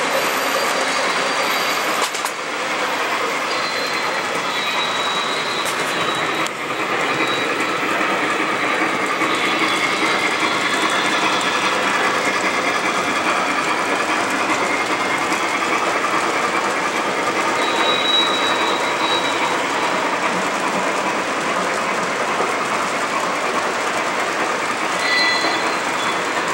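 O scale model trains running on three-rail track: a steady rolling rumble and clatter of metal wheels as heavyweight Pullman passenger cars and then a Lionel Legacy Nickel Plate Road Berkshire with its freight cars pass. Brief high wheel squeals come now and then.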